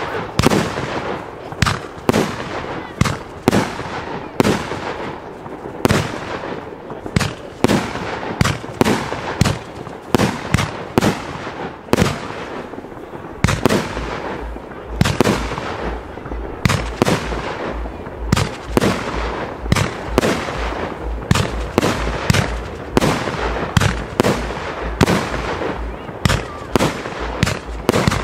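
Fireworks display: a rapid, unbroken run of sharp bangs, about one to two a second, with crackling between. From about halfway, deep thuds come in a quick regular series under the bangs.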